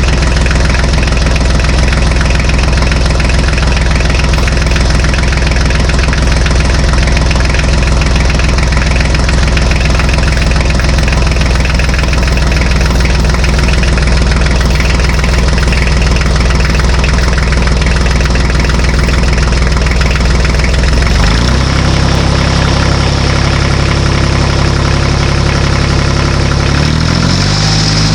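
An engine running steadily at a low, even note. Its pitch changes abruptly about three-quarters of the way through, and again near the end.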